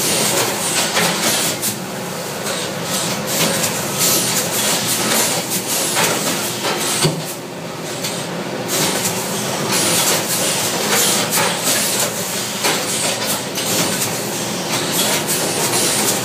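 Portpack PP2000 IBC mobile bagging machine running while it fills a bulk bag: a loud steady mechanical rush with dense, irregular clattering.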